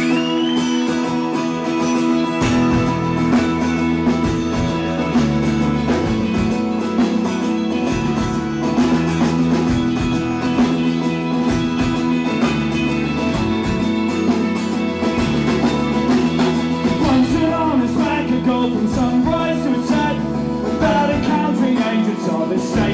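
Live rock band playing the instrumental opening of a song: held guitar chords, with a heavy low end coming in about two seconds in and carrying a steady beat.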